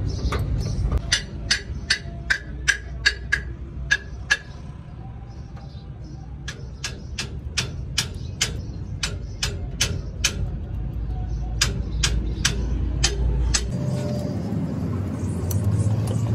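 Sharp metal clicks from work on a truck's wheel hub and axle nut, about two or three a second in two runs, over a low steady rumble.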